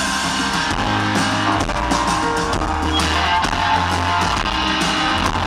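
Live rock band playing an instrumental passage without vocals: strummed guitar over sustained bass notes, with a drum kit keeping a steady beat.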